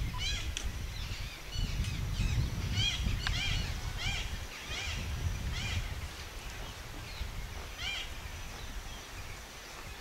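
Many short, high bird calls, each a quick rising-and-falling chirp, scattered through and densest in the first six seconds, over a low rumble.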